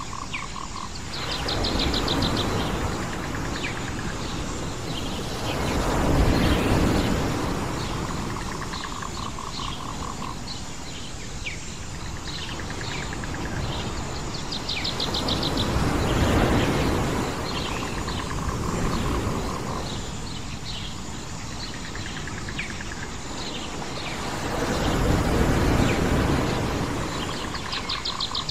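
Waves washing onto a shore, swelling and fading every few seconds, with birds chirping and trilling over them.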